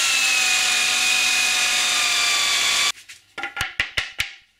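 Corded power drill with a hole saw cutting through a wooden board: a steady whine whose pitch sags slightly under load, stopping abruptly about three seconds in. Then a quick run of sharp wooden knocks and clacks.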